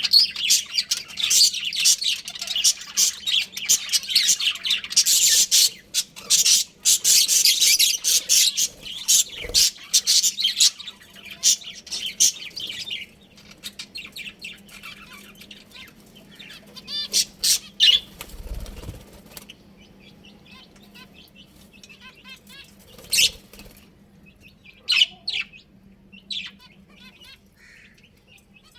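Budgerigars chirping and warbling together, a dense busy chatter for the first half that thins to scattered chirps in the second half.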